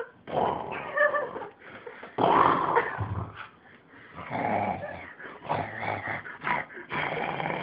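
A dog making a string of short growling and whining noises, some rough and some with a pitched tone.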